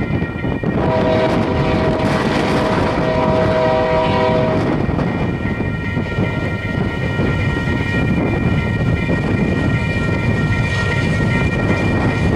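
Diesel locomotive air horn sounding a chord for about four seconds, starting about a second in, over the steady rumble of an approaching freight train at a grade crossing, with the crossing's warning bell ringing.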